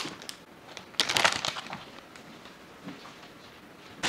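Crinkly, crackling handling noise from hands sprinkling and brushing off shredded cheese: a few short rustles, the loudest about a second in, with smaller ones at the start and near the end.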